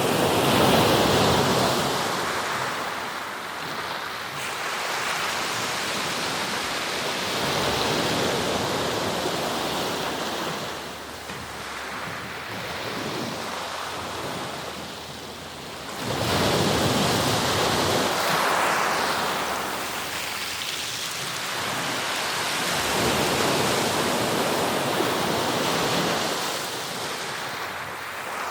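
Sea surf: waves breaking and washing on the shore in slow surges that swell and ebb every several seconds, the loudest near the start and about halfway through.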